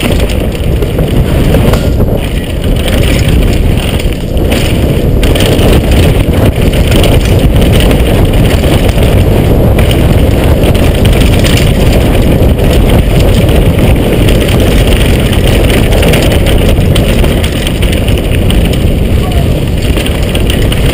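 Wind buffeting the microphone with the rattle and tyre noise of a downhill mountain bike on a rough trail, loud and steady throughout, with short knocks scattered through it.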